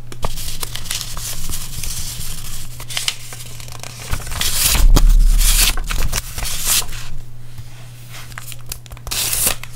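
Paper and thin sticker sheets rustling and crinkling as they are handled and leafed through, in a run of short crackly strokes, loudest about halfway through, with a low bump near the middle. A steady low hum lies underneath.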